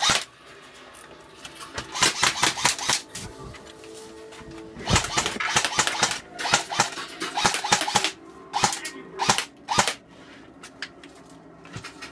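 Airsoft guns firing a series of short bursts of rapid shots, beginning about two seconds in.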